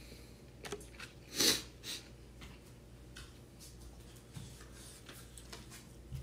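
Soft eating sounds, someone chewing a mouthful of rice and seasoned seaweed close to the microphone, with a few small clicks and one short noisy breath-like burst about a second and a half in.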